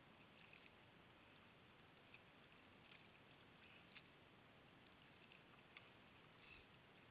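Near silence: faint steady hiss with a few soft ticks.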